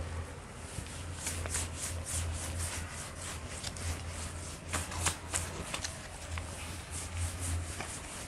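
Whiteboard eraser wiping across the board in a series of short, dry rubbing strokes, coming in irregular clusters, over a steady low electrical hum.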